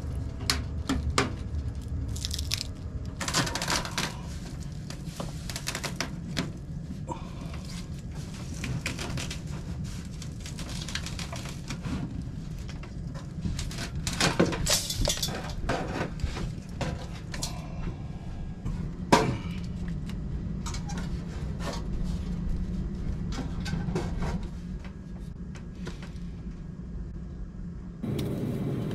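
Irregular scraping, crackling and clicking as brittle old duct tape is cut with a utility knife and peeled off a round sheet-metal HVAC duct, with knocks and rattles of the metal duct being worked loose at its joint and one sharp knock about two-thirds of the way through. A steady low hum runs underneath.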